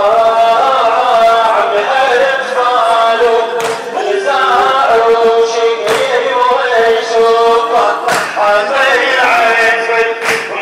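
Men chanting a Shia Muharram lamentation (latmiya) together, with a sharp collective chest-beating strike about every two seconds, in time with the chant.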